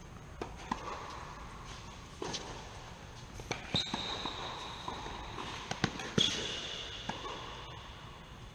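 Tennis rally on a hard court inside a dome: sharp pops of racket strikes and ball bounces every second or two, the loudest about six seconds in, with two long high squeals partway through.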